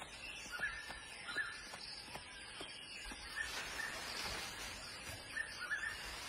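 Faint forest ambience with short, high bird chirps repeated every half second to a second, and a few faint ticks between them.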